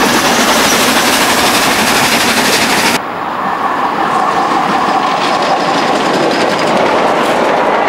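Steam train running close by, its wheels on the rails making a loud, steady clatter. About three seconds in the sound cuts abruptly to a double-headed steam train approaching and passing, a steadier rumble of locomotives and coaches.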